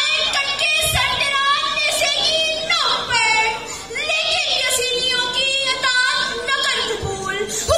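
A young girl's voice declaiming a speech into a microphone, in a loud, drawn-out, sing-song delivery with held, swooping notes.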